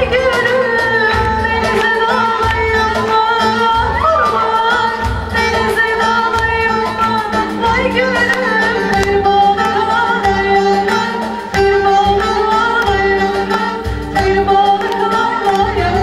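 A woman singing a Turkish folk song (türkü) in long, wavering sung lines. She is accompanied by a long wooden end-blown flute and other instruments.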